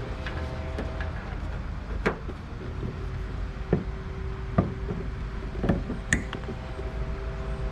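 Scattered sharp clicks and knocks of a car's door mirror and its wiring being handled and fitted into the door, over a steady low hum.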